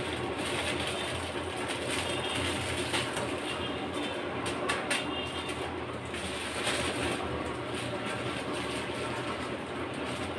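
Pot of water boiling on a gas stove burner, a steady rumbling hiss, with a few short crackles of a plastic instant-noodle packet being handled around the middle.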